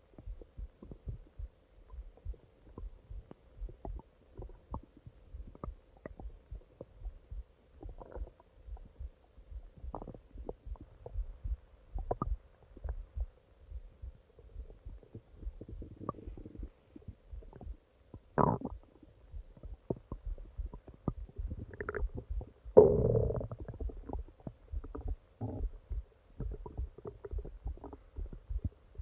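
Human stomach growling: a continuous run of quick, low crackling gurgles, with two louder, longer gurgles later on, the second the loudest.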